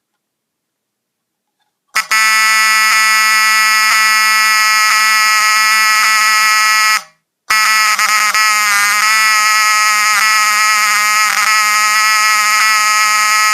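Wheelock 7002T fire alarm horn, run on three batteries, sounding a loud continuous horn tone. It starts about two seconds in, cuts out for half a second partway through, then sounds again.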